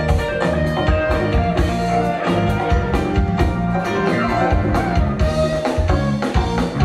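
Live funk band playing a steady groove: electric guitar and drum kit, with hand drums and keyboard in the mix.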